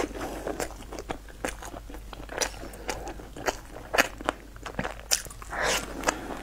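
Close-up chewing and biting of a flaky pastry with cream: irregular crunchy, crackly mouth sounds. A short breathy noise comes a little before the end.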